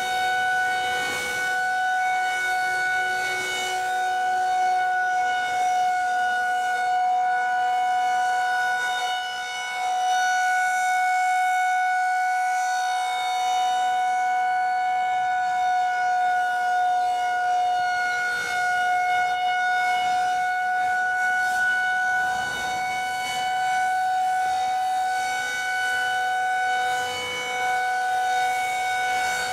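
Federal Signal 2001-130 outdoor warning siren sounding the steady Alert signal: one unbroken tone with strong overtones, holding its pitch while the loudness swells and dips gently as the siren rotates.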